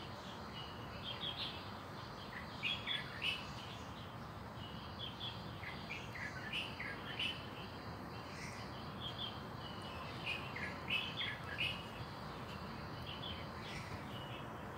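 Small birds chirping, short high notes in quick clusters every second or so, over a steady low background hum.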